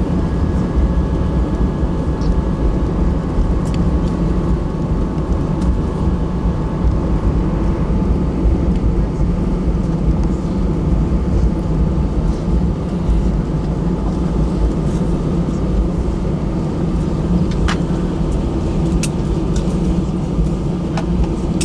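Airliner cabin noise just after landing: the steady low rumble of the jet rolling on the ground, its engines running, with a whine that fades out about eight seconds in. A few light clicks come near the end.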